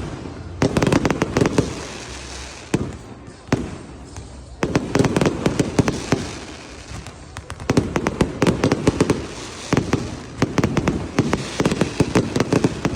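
Fireworks going off in rapid volleys of sharp bangs and crackles, four bursts of a second or two each with short lulls between.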